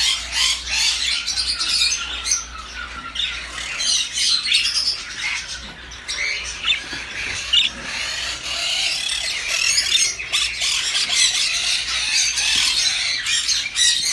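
Many caged parrots squawking and chattering at once, a dense, continuous din of shrill overlapping calls.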